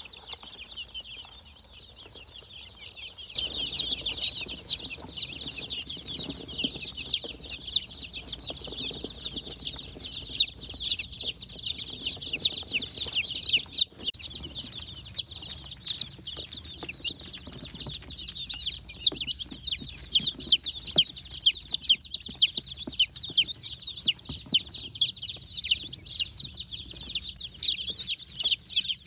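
A brooder full of day-old chicks peeping constantly, many high, quick chirps overlapping. The peeping is fainter for the first few seconds, then grows loud about three seconds in.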